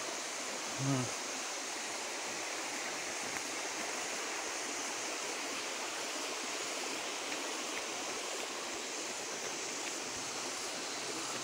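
Steady rush of running water, with one brief low sound about a second in.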